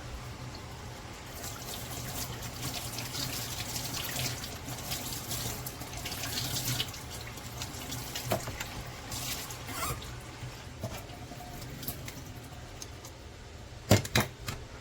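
Water running and splashing, as from a tap, with a sharp knock near the end.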